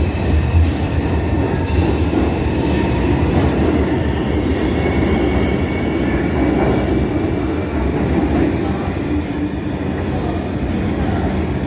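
New York City subway train pulling out of a station, its wheels and traction motors giving a steady loud rumble on the rails, easing slightly near the end as it moves away down the tunnel.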